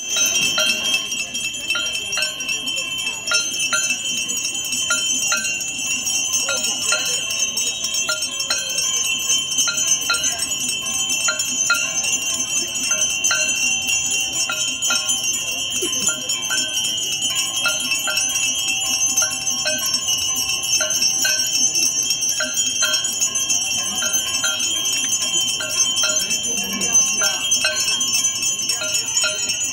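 Temple bells ringing without a break for the Ganga Aarti, with a steady, even rhythm of strikes.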